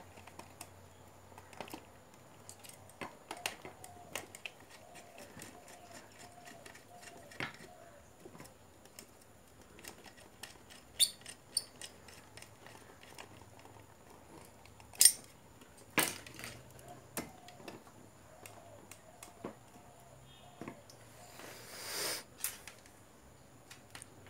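Scattered small clicks and taps of a screwdriver working the screw terminals of a car audio amplifier while wires are fitted, with two sharper clicks midway and a brief rustle near the end.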